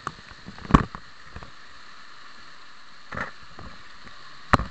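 Swollen river rushing through a turbulent boil of standing waves: a steady rushing hiss. Two short, sharp thumps break it, about a second in and near the end, with a smaller one just past three seconds.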